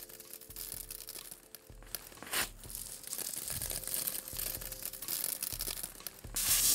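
Dried coffee beans rustling and rattling as they are scooped up by hand and let fall back onto a tarp, in uneven bursts, loudest near the end.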